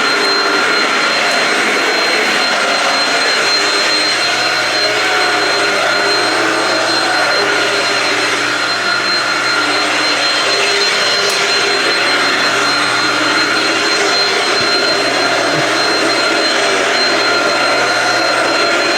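Shark Rocket stick vacuum with DuoClean brush roll running steadily: a constant rush of air with a steady high motor whine.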